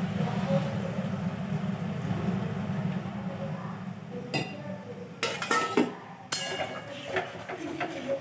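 Water poured from a steel mug into an aluminium kadai of fried vegetables, a steady rushing splash for the first few seconds. About five seconds in it changes to a metal spatula clinking and scraping against the kadai as the vegetables are stirred.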